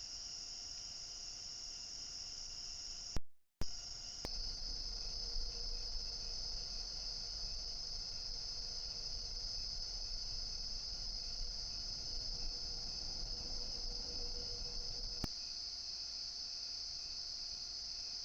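A steady, high-pitched chorus of insects trilling continuously. About three seconds in, the sound drops out briefly between sharp clicks, and a low rumble sits under the chorus through most of the middle.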